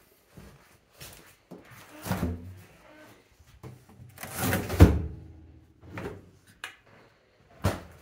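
Refrigerator door opened and then shut with a thud just before five seconds in, followed by a few lighter knocks.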